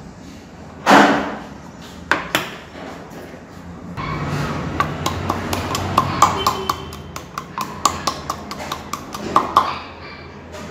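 A metal utensil knocking and clinking against a cooking pot: one loud ringing knock about a second in, two sharp taps, then from about four seconds a rapid run of clinks over a scraping, stirring sound.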